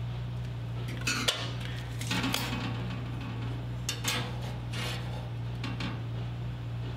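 Metal hand tools, a steel square and a tape measure, clinking and scraping on a steel plate over an expanded-metal table top, in a few short clatters about one, two and four seconds in. A steady low hum sits underneath.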